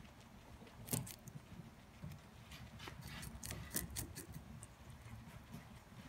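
Guinea pig biting and chewing a piece of cucumber: irregular crisp crunches and clicks, the sharpest about a second in and again around three and a half to four seconds.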